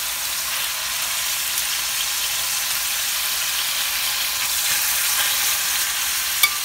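Stuffed chicken breasts sizzling steadily as they fry in a little oil in a metal pan, being turned with tongs, with a sharp click of the tongs against the pan near the end.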